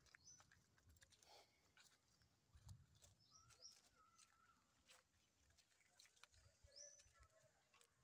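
Near silence: faint footsteps crunching through dry leaf litter, with a few short, faint high chirps now and then.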